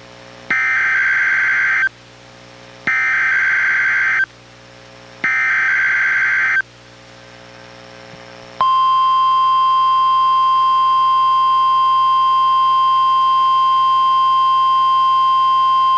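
NOAA Weather Radio Required Weekly Test signal: three short bursts of SAME digital header data, each about a second and a half long. About eight and a half seconds in, the steady 1050 Hz NWR warning alarm tone starts and holds.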